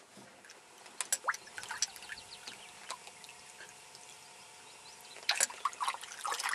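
Water lapping and dripping beside a boat, with scattered small splashes and a cluster of sharper splashes about five seconds in.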